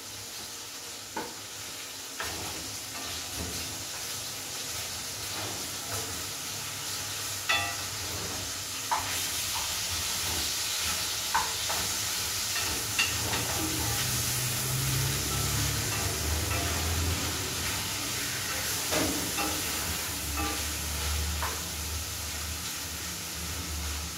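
Food sizzling and frying in a pan on a gas stove, with a steady hiss, while a spoon stirs it and knocks against the pan several times in sharp clicks. A low rumble comes in about halfway through.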